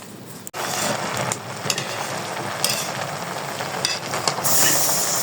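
Food frying in a pan: an even sizzle with scattered clicks and scrapes of stirring. The hiss gets louder and brighter about four and a half seconds in.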